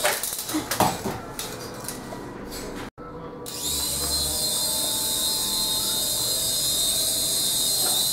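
Infrared RC micro helicopter: a few sharp knocks and clatters in the first second, a brief cut to silence about three seconds in, then its small electric rotor motors spin up and run with a steady high-pitched whine as it hovers.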